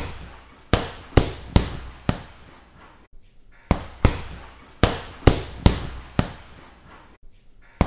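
Chopping: a series of sharp, uneven strikes, one or two a second, with a pause of about a second and a half midway.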